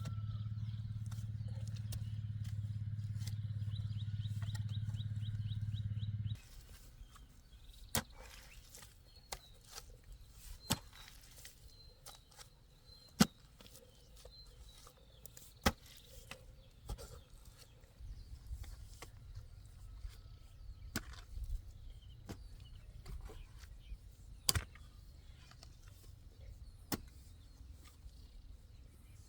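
A steady low machine hum that cuts off suddenly about six seconds in, followed by scattered sharp knocks and a few faint bird chirps.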